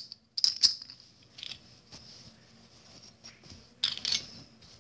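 Hard seashells clicking and clinking against one another as they are picked up and handled, in three short clusters of clicks.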